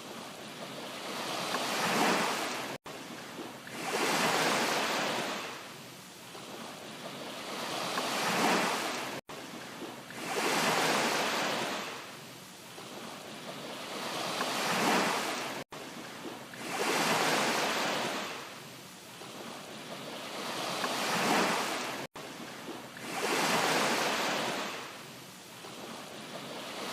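Rushing water noise that swells and fades about every three seconds, a short recording looped over and over with a brief dropout at each join, roughly every six and a half seconds.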